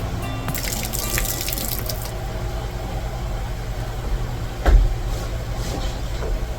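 A short burst of liquid squirting or spraying while a cow's teats are prepped for milking, over a steady low hum. A single dull thump about two-thirds of the way through.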